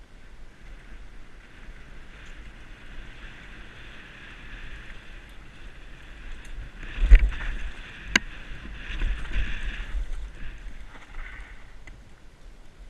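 Mountain bike descending a dirt singletrack, heard from a helmet-mounted camera: wind rush on the microphone and tyres running over the dirt. About halfway through comes a hard knock, then a sharp click a second later, followed by a rougher rattling stretch as the bike goes over bumps.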